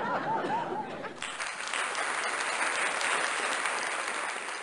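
Audience at a live dueling-piano bar show applauding and cheering, with a few whoops at the start and the clapping growing louder about a second in.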